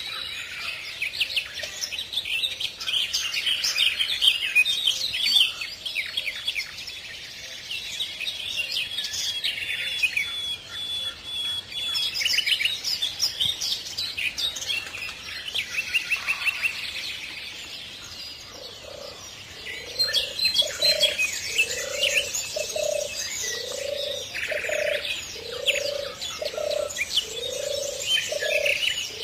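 A chorus of small birds chirping and trilling. From about two-thirds of the way in, a lower call repeats about once a second beneath them.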